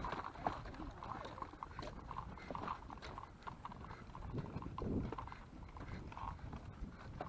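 Many dogs' claws clicking irregularly on a wooden boardwalk as the pack walks, over the low rumble of a stroller rolling across the planks.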